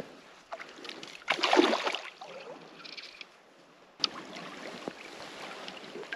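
Hooked trout splashing and thrashing at the surface while being played in, with one loud splash about a second and a half in, then lighter water sloshing as a landing net goes into the water.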